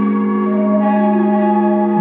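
Ambient background music of long held notes, the chord changing about a second in.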